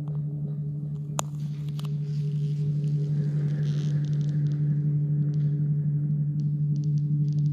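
Steady low drone: one held low tone with fainter overtones above it, slowly growing a little louder, and a single sharp click about a second in.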